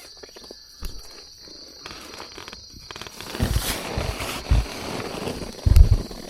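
Rustling and several low thumps of something being handled close to the microphone, the loudest near the end, over a steady high insect drone.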